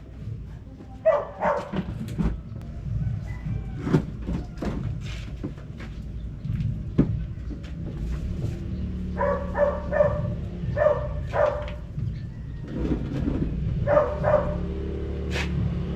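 A dog barking in short bursts, several times, with a quick run of four barks partway through, over a steady low rumble and scattered knocks.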